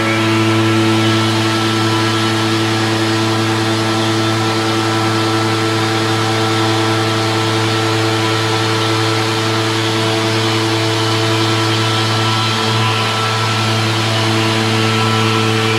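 Denver Krea Fit CNC stone machining centre running, its spindle tool cutting a granite slab under a water coolant spray: a steady hum with a hiss above it.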